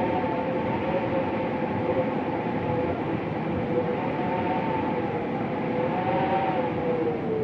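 Winter wind moaning: a steady rushing noise with a low howling tone and a higher one above it, both slowly wavering up and down in pitch.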